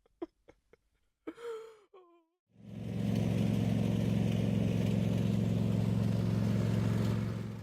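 A short wavering groan, then a petrol lawnmower engine fades in about two and a half seconds in and runs steadily before fading out at the end.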